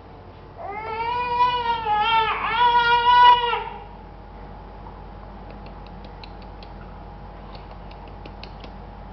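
A long, high-pitched wailing call lasting about three seconds. It wavers a little in pitch and breaks briefly in the middle, and faint small ticks follow later.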